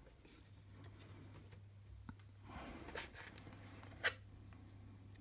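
Quiet room with a low steady hum, broken by a few faint clicks and soft rustling of small objects being handled, about two, three and four seconds in.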